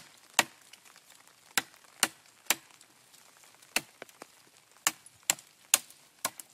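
Force Elite tactical knife blade chopping into a spruce log: a series of sharp, hard strikes, coming in quick runs of about two a second with short pauses between them.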